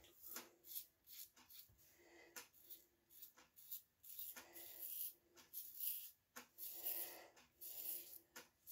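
Double-edge safety razor (Phoenix Artisan Accoutrements Phantom Blue) scraping through lathered stubble on a shaved head: a series of quiet, short scraping strokes, about one a second.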